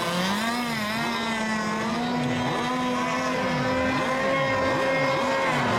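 Several radio-controlled racing boats' engines running on the water at once, a steady high-pitched drone. The overlapping engine tones repeatedly dip and rise in pitch as boats pass while circling before the race start.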